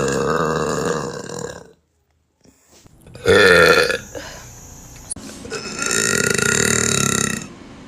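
A woman's deep burps, three of them. The first is long and fades out about a second and a half in. After a brief break comes a short loud one about three seconds in, then a long one lasting nearly two seconds near the end.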